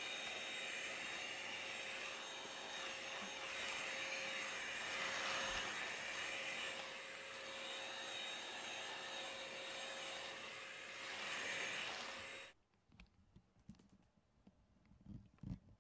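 Handheld stick vacuum cleaner running over a wooden floor, a steady motor whine with a rushing of air that swells and eases as it moves. It switches off abruptly about twelve seconds in, leaving a few faint knocks.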